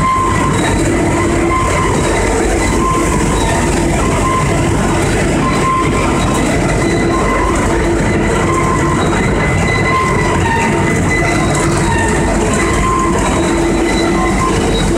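Biomass sawdust pellet production line running: large pellet mills with their electric motors and the conveyor beneath them. The result is a loud, steady mechanical din with several whining tones that come and go.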